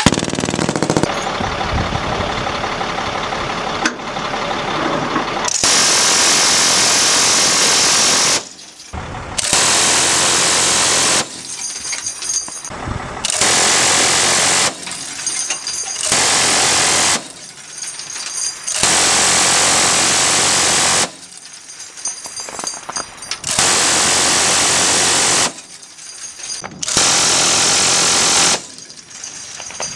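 M134/GAU-17 7.62 mm six-barrel minigun firing in repeated bursts of one to three seconds, each a continuous buzzing stream of shots, with short pauses between them, about seven bursts in all.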